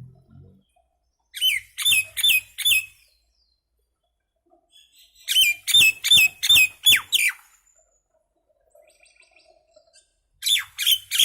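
Common myna calling in three bouts of quick, repeated down-slurred notes, about three to four a second, with pauses of a couple of seconds between the bouts.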